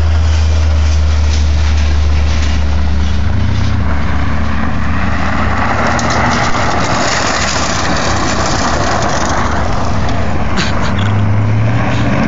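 Car engine running through a drift on a loose dirt lot: a steady low engine drone, a rush of spinning tyres and flung gravel in the middle, and scattered small ticks of stones. The engine note steps up in pitch near the end.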